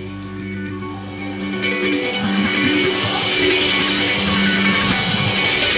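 Instrumental band music led by guitar, with no vocals; held notes at first, then the band swells louder about a second and a half in.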